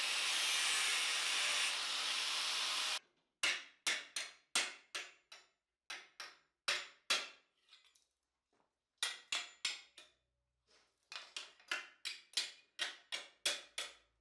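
An angle grinder running on the edge of a steel armour plate, stopping abruptly about three seconds in. Then a hammer strikes the plate's edge over a steel ball stake in quick runs of ringing blows, with a short pause partway through.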